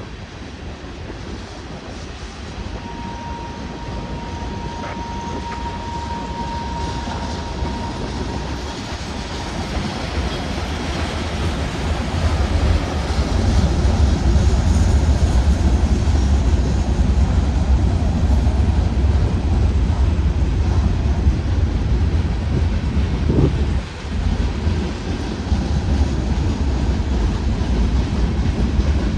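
Union Pacific manifest freight train's cars rolling past in a steady low rumble, growing louder about twelve seconds in.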